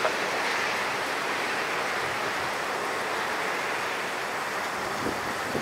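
Steady, even rush of distant jet engine noise from an Airbus A350-900's Rolls-Royce Trent XWB engines on final approach to land. Two faint low thumps come near the end.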